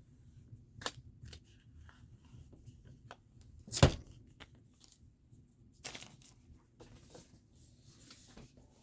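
Handling sounds: scattered light clicks and short rustles, with one sharp knock just before four seconds in.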